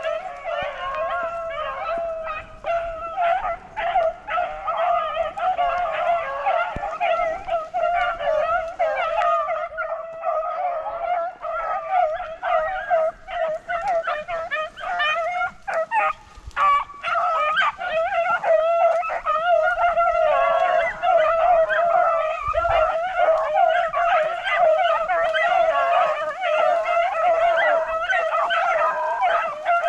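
A pack of beagles baying nonstop, several voices overlapping: hounds in full cry running a rabbit's scent trail.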